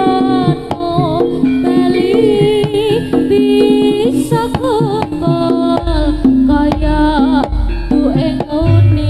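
Jaranan ensemble music: kendang drums and gamelan-style pitched percussion under a wavering melodic line with heavy vibrato. A deep bass note comes in about six seconds in.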